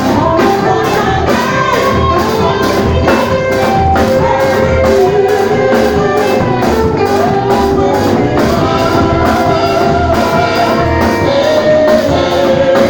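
Live church worship band playing: drum kit keeping a steady beat of about two strokes a second under keyboard and guitar, with voices singing a melody over it.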